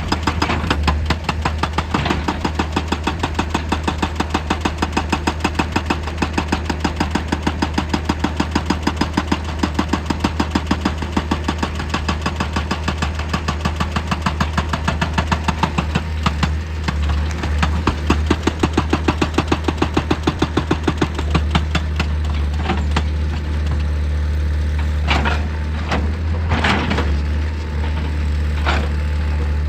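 Excavator-mounted hydraulic rock breaker hammering rock in rapid, even blows, several a second, over its running diesel engine. About two-thirds of the way through the hammering stops, leaving the engine running with a few single knocks near the end.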